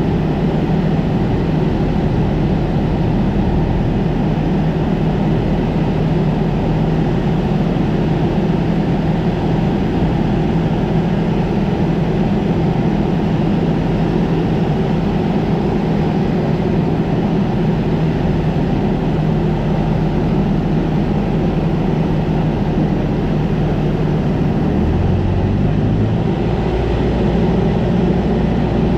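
Piston engine and propeller of a single-engine light airplane, heard from inside the cockpit as a steady, loud drone. Near the end the engine note changes.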